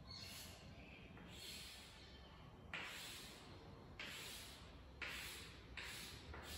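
Chalk scratching on a chalkboard in a run of short strokes as diagonal shading lines are drawn. The strokes are faint at first and louder from about three seconds in, coming about once a second.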